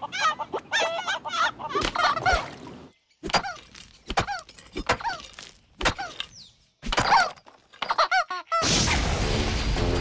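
Cartoon flamingos squawking: quick chattering calls at first, then single short squawks that fall in pitch, with small clicks between. About eight and a half seconds in, a loud steady rushing noise starts suddenly.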